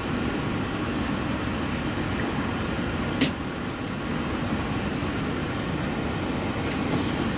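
Steady hum and rumble inside a Walt Disney World monorail car, with a sharp click about three seconds in and a fainter one near the end.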